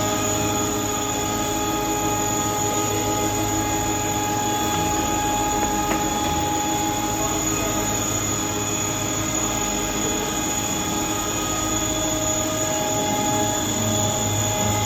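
Four-sided planer moulder running steadily: a continuous machine sound made of several steady whining tones over an even noise, with no change in speed.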